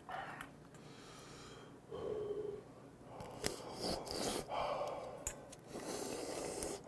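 A person slurping ramen noodles off chopsticks: a run of noisy sucking slurps starting about three seconds in.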